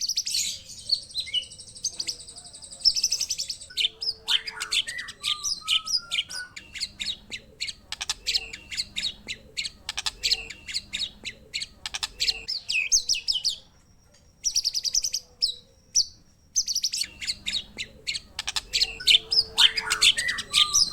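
Songbird song of the kind used in bird-song training recordings: a dense run of rapid chirps, trills and whistles, with a short pause of about two seconds a little past the middle before the singing picks up again.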